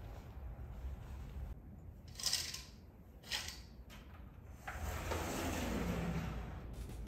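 Small objects being handled on a tabletop: two short scrapes about two and three seconds in, then a steady soft rustle through the rest.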